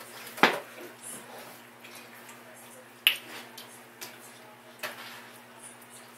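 Spoons clicking and tapping against plastic bowls as children eat: three sharp clicks, about half a second, three seconds and nearly five seconds in, with fainter ticks between.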